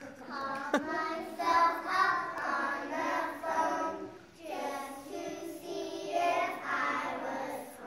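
A group of young children singing a song together, with one brief sharp sound about a second in.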